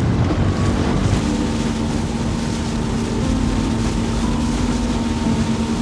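Tender's outboard motor running steadily under way, with a steady hum and wind on the microphone.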